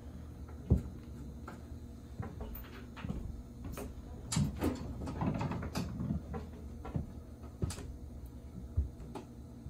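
Sheet-metal breaker panel cover being held and shifted against the panel while its screws are lined up, giving scattered metallic clicks and knocks, the sharpest near the start and again near the end.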